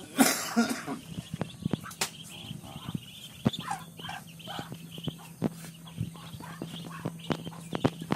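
Ducklings peeping, short high chirps scattered throughout, over many sharp clicks and scuffs from footsteps on the dirt. There is one loud, short, noisy burst about a quarter of a second in.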